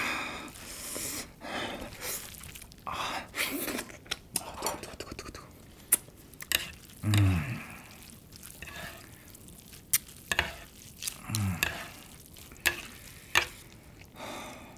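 Cooked mi goreng instant noodles being tossed and stirred through their sauce on a metal tray, by gloved hands and then metal utensils. It makes irregular wet squishing and rustling, with sharp clicks now and then as the utensils hit the tray.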